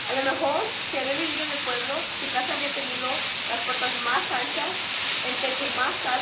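A steady, loud hiss, with faint voices murmuring beneath it.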